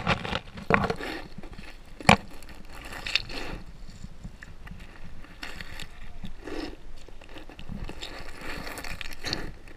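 Muffled river water noise picked up by a GoPro inside its waterproof housing underwater, with irregular bumps and clicks and one sharp knock about two seconds in.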